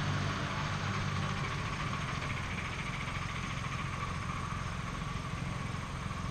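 Low, steady engine drone that weakens over the first couple of seconds, over an even outdoor background noise.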